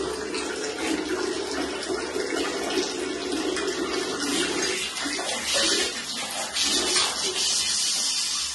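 Water running steadily from a tap or pipe during the water heater's plumbing hook-up.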